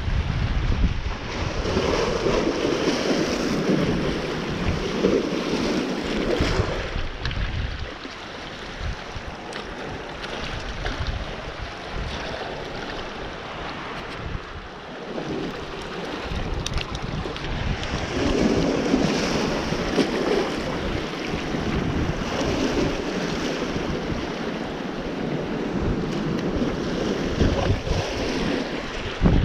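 Wind buffeting the microphone over the wash of water and waves, swelling louder twice.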